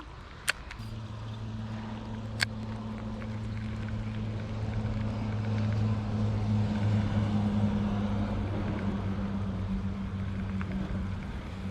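An engine passing by: a steady low hum that grows louder over several seconds and then eases off. Two sharp clicks, about half a second and two and a half seconds in.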